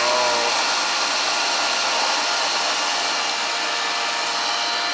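Shallow-well jet pump's electric motor running, a steady whirring hum with a faint whine. It has cut in late, at about 22 psi, and is building the water system's pressure back up.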